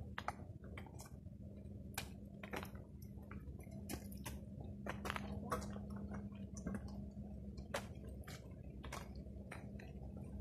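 Footsteps crunching through dry gum leaves and grass, sharp crackles and snaps about one or two a second, over a steady low hum.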